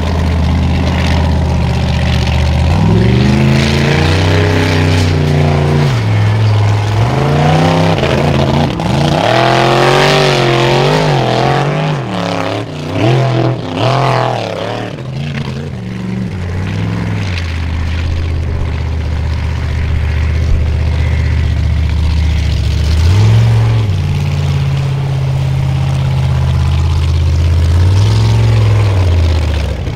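Formula offroad buggy engine running hard and revving. Its pitch rises and falls quickly with the throttle for the first half, then holds steadier, with two short rev blips near the end.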